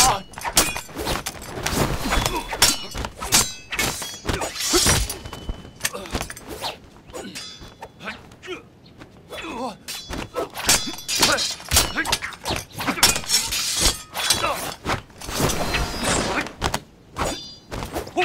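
Film fight sound effects of a hand-to-hand martial-arts fight: a rapid run of blows and thuds mixed with swishing swings, easing off for a moment near the middle before picking up again.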